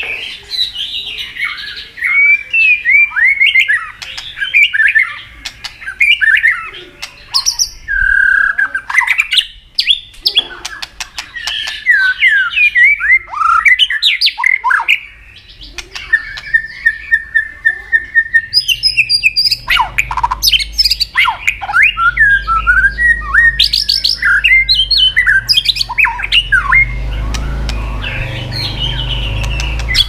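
White-rumped shama singing continuously: a fast, varied run of loud whistled phrases, slurred glides and warbles, with sharp clicks mixed in.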